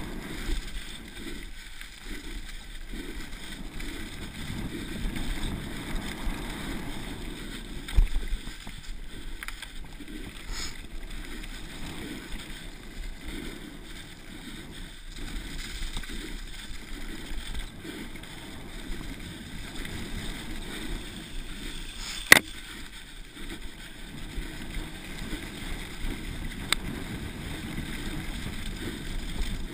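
Mountain bike rolling fast downhill over dry grass and dirt: a steady rushing of tyre and wind noise on the camera. A sharp knock comes about eight seconds in, and a louder one a little past twenty-two seconds.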